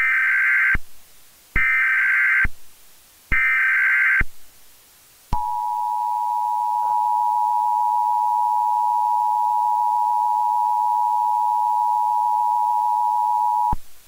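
Emergency Alert System header and attention signal: three short bursts of SAME digital data tones, each under a second with about a second between them, then the steady two-tone attention signal held for about eight seconds before it cuts off. Together they open an alert broadcast, here a hard freeze warning.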